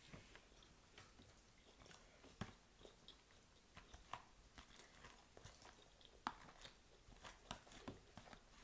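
Faint, close-up chewing of crunchy Caesar salad (lettuce and croutons), with scattered crunches and the clicks of a fork picking at the salad in a plastic takeout container.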